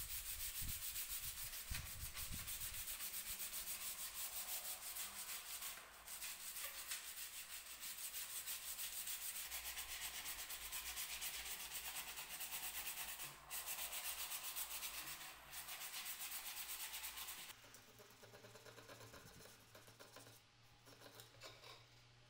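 Sandpaper rubbed by hand over an old wooden table rail in fast back-and-forth strokes, with a few short breaks. About three-quarters of the way in, the strokes turn quieter and finer as the folded sandpaper works into the carved ornament.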